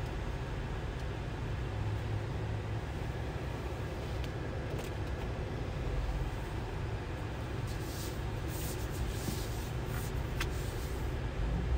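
2022 GMC Sierra AT4X's 6.2-litre V8 idling, heard from inside the cabin as a steady low rumble. A few light clicks and rustles come in the last few seconds.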